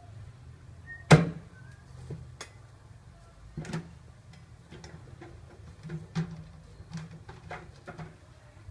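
A cleaver chopping goose meat on a thick wooden chopping block: one loud chop about a second in, then a few lighter knocks and taps.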